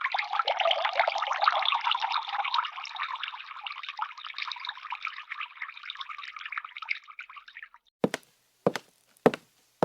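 Sound effect of dense bubbling, dripping water, made of many fine ticks, that fades away over about eight seconds. Near the end come sharp, evenly spaced taps a little under twice a second.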